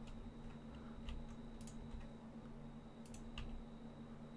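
A few scattered, faint computer keyboard key presses and clicks over a steady low hum.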